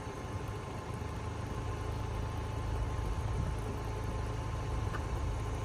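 2023 Porsche Macan's engine idling, a steady low rumble.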